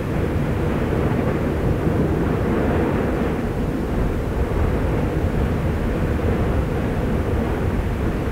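Steady low rumbling of the erupting Fagradalsfjall volcano, an even noise with no breaks or single blasts.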